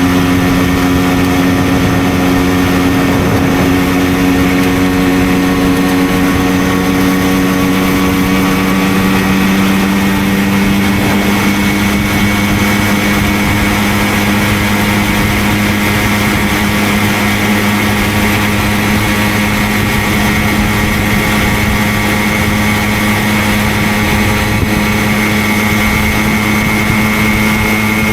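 Simson moped's single-cylinder two-stroke engine running steadily while riding, its pitch creeping slowly higher.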